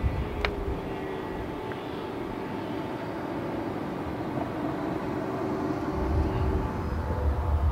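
Whelen Vortex R4 outdoor warning siren winding down after its alert, a faint tone sinking slowly in pitch. A low rumble builds about six seconds in.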